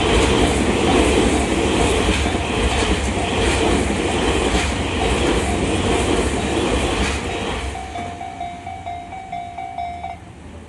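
A train passing over a railway level crossing, its wheels clattering rhythmically over the rail joints, then fading after about seven seconds. The crossing's warning bell dings repeatedly and stops about ten seconds in, the sign that the crossing is clearing.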